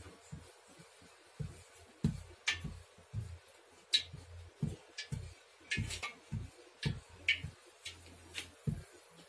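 Wooden rolling pin rolling out a thick, sesame-topped dough on a wooden board: irregular soft low thuds about twice a second, mixed with a few sharper clicks.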